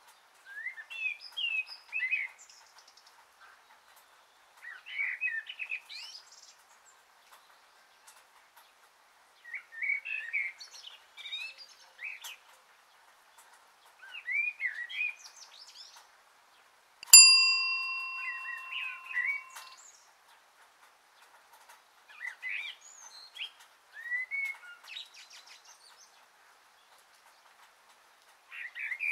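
Songbirds singing in short chirping phrases every few seconds. A little past halfway a single bell-like chime is struck and rings for a couple of seconds, the loudest sound here.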